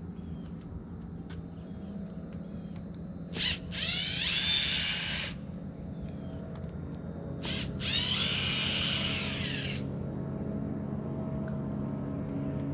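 A handheld power tool, like a drill or driver, runs in two bursts of about two seconds each. Each burst spins up with a rising whine, and there is a steady low hum underneath.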